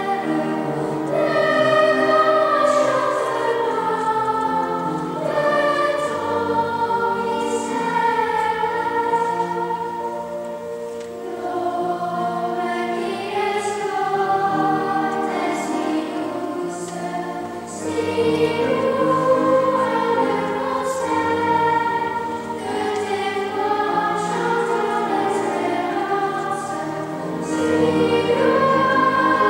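Girls' children's choir singing in long, held phrases, with two brief quieter stretches before the singing swells again.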